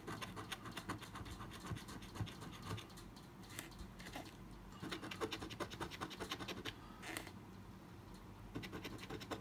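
A coin scraping the coating off a scratch-off lottery ticket in runs of quick short strokes, with brief pauses between runs.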